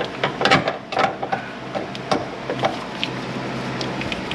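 Irregular clinks and knocks of hand tools and metal parts being handled during car repair, several close together at first and then sparser, over a steady low hum.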